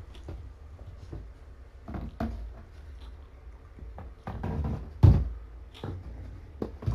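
Irregular dull knocks and thumps from a person moving about a room and handling things, the loudest about five seconds in, over a low steady hum.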